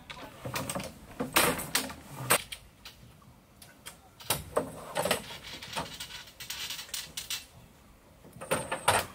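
A series of irregular knocks and clatters, with louder clusters about a second in, in the middle and near the end.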